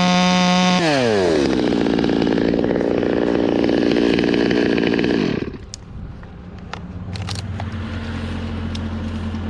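Stihl 200T two-stroke top-handle chainsaw held at full throttle, then released so the revs fall away to idle about a second in; it idles steadily and cuts off abruptly about five and a half seconds in. After that come a few clicks and a quieter steady low engine hum.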